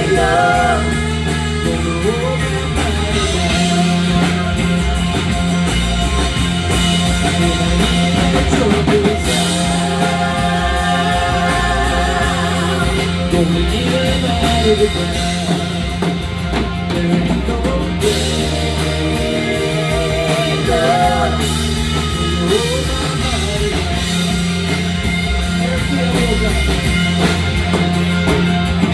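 Rock band playing with electric guitar, bass and drum kit. A melodic line bends and wavers over a steady low bass.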